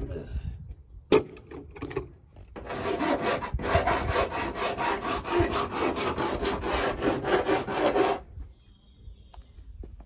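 A sharp click at the start and another about a second in, then a hand file rasping in quick, even back-and-forth strokes along the freshly cut sheet-metal edge of a window opening in a van's side panel, deburring it. The filing stops near the end.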